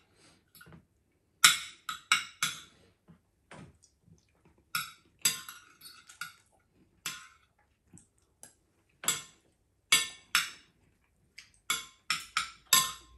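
Metal spoon and fork clinking and scraping against a ceramic plate while eating, in irregular sharp clinks, a few of them ringing briefly.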